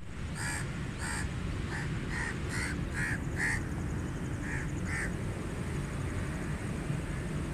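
Crows cawing: about nine short, harsh caws in quick succession during the first five seconds, then a pause, over a steady low background rumble.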